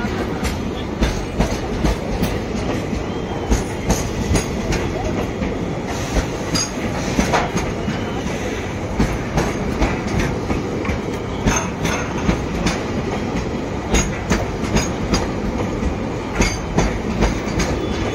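Goods train's freight wagons rolling past close by, the wheels clattering in a steady run of knocks over the rail joints.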